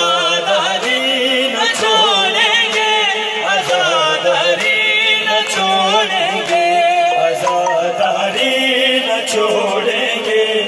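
Noha recitation over a sound system: voices singing a wavering, ornamented melody over long held notes, with sharp hits at intervals.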